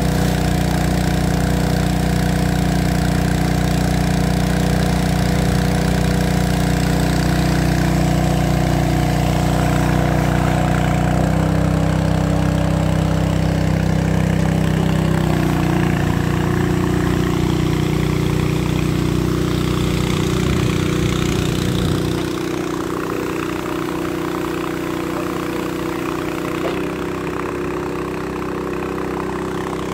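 Engine of a portable foam firefighting pump running steadily. Its note shifts about 11 and 15 seconds in, and about 22 seconds in the deep part of the sound falls away and it gets a little quieter.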